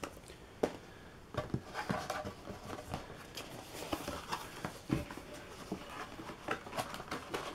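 Cardboard and paperboard boxes being handled by hand: a printed box lifted out of a cardboard carton and turned over, with scattered light knocks and scrapes and soft rubbing between.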